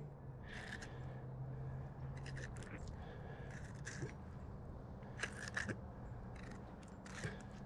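Fillet knife slicing through a sheepshead and raking along its backbone and rib bones: a series of short, faint scratchy scrapes.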